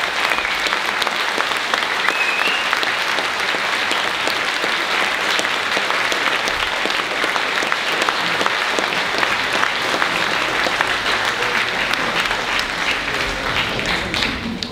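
Audience in a theatre hall applauding, dense steady clapping that dies away near the end.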